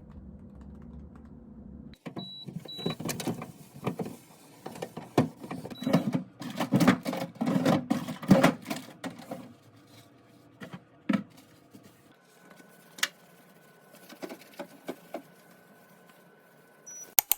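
Refrigerator being cleaned by hand: rubbing and wiping with many clatters and knocks of plastic parts, busiest in the first half, then occasional single knocks.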